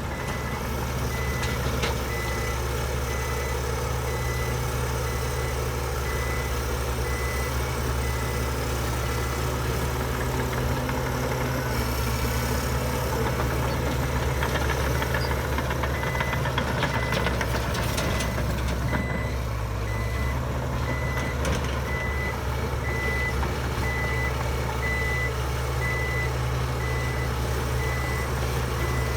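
Heavy diesel earthmoving machinery running steadily, with a reversing alarm beeping over the engine drone as a machine backs up.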